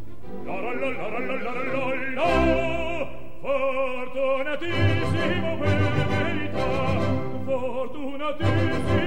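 Operatic singing with strong vibrato over orchestral accompaniment, the voice moving between held notes.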